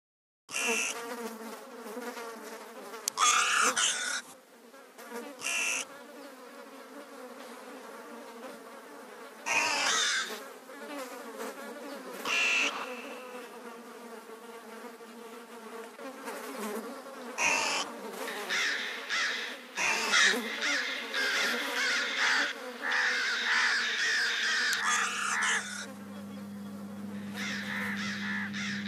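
Flies buzzing steadily, with crows cawing now and then, several caws close together in the second half. A low, steady hum comes in near the end.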